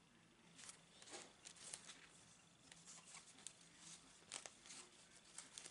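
Faint rustling of stiff card and paper being handled, a string of short scrapes and light clicks starting about half a second in.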